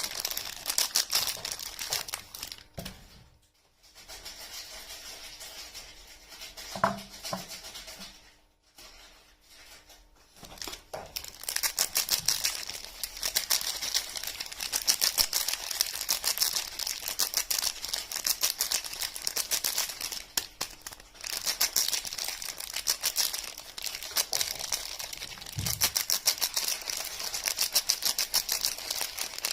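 Soap packaging being handled and unwrapped close to the microphone: dense, rapid crinkling and crackling. It drops to a quieter stretch a few seconds in, then picks up again.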